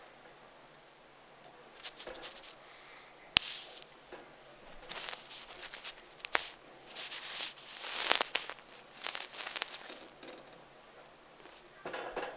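A small pet rodent scurrying over the cage floor, in uneven bursts of scratchy pattering and rustling, with two sharp clicks among them.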